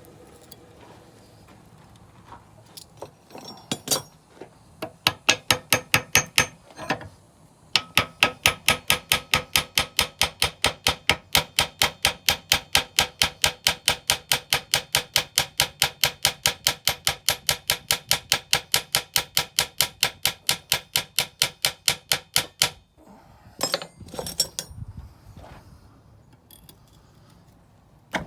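Blacksmith's hand hammer striking iron on an anvil while forging nails, each blow ringing. A short run of blows, a brief pause, then a long steady run of about three blows a second, ending with a few lighter, scattered strikes.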